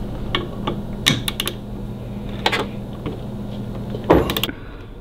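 Hand wrench ratcheting in scattered clicks as triple-tree clamp bolts are tightened toward 45 foot-pounds, with a louder knock of metal on metal near the end, over a steady low hum.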